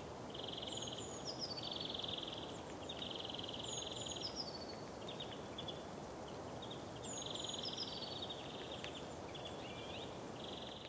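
Faint outdoor nature ambience: a bird gives a short run of falling chirps about every three seconds, over rapid pulsing trills and a steady low hiss.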